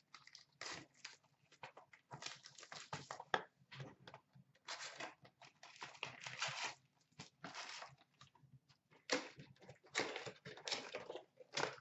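Foil hockey card pack wrappers crinkling and tearing as packs are handled and ripped open by hand, in short irregular bursts.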